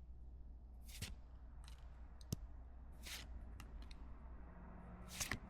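Faint rustles and clicks of Pokémon trading cards being handled and flipped through one at a time, a handful of short swishes with a sharp click about two seconds in.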